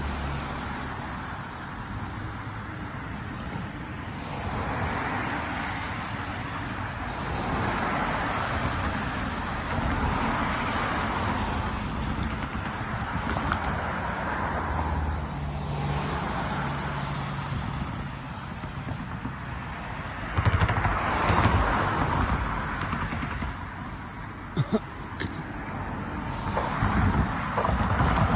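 Outdoor road traffic: passing cars swelling and fading in turn over a steady background hiss, with a few sharp knocks near the end.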